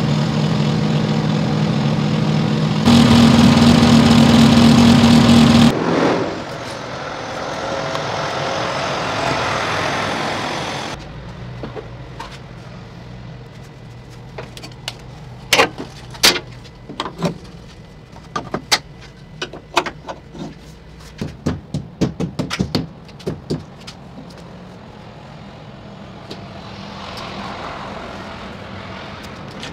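Semi truck's diesel engine idling, then a loud hiss of compressed air from the truck's air system for about three seconds, trailing off into a softer hiss. After that, a long run of sharp clicks and metal knocks.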